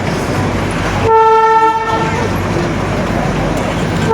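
Darjeeling toy train sounding one short, steady blast of its horn about a second in, over the continuous running noise of the train; another blast begins right at the end.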